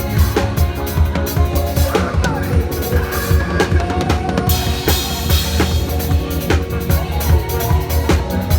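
Live church praise music driven by a drum kit, with bass drum and snare hits at a steady rhythm over sustained pitched instruments.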